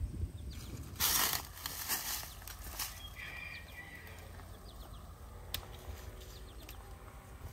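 Grapevine leaves rustling, with a burst about a second in and scattered small clicks after it, then a sharp snip of pruning shears cutting a grape bunch about five and a half seconds in. Faint bird chirps run underneath.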